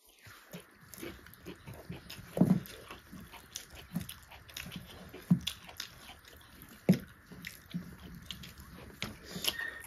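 Close-miked eating sounds: chewing and wet mouth smacks, with a few louder smacks every second or two, and gloved hands squishing rice and pork on a banana leaf.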